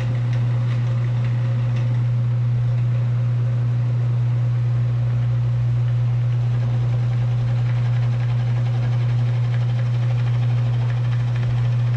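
Delta wood lathe's electric motor and variable-speed pulley drive running with a steady low hum.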